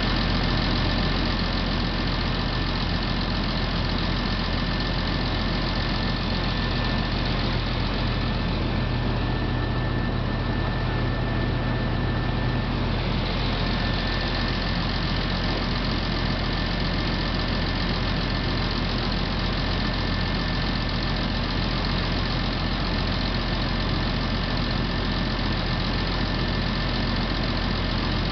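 An engine idling steadily, with a thin high whine held over the low hum.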